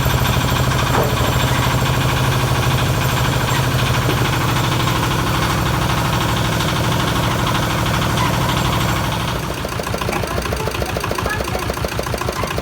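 Carrot-washing machine running steadily with a low hum. About nine seconds in the hum drops away and the sound turns a little quieter, with a fast, regular pulsing.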